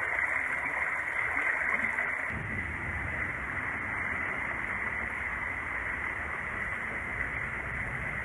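Creek water running over stones: a steady rushing hiss, with a low rumble joining about two seconds in.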